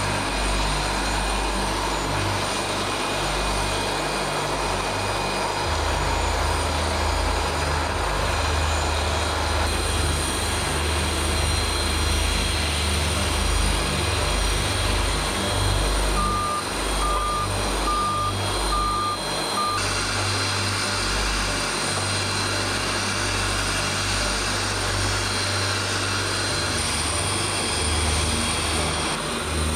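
Steady engine noise from aircraft and ground support vehicles, changing abruptly about a third and two thirds of the way through. Past the middle, a vehicle's reverse alarm beeps about five times in a row.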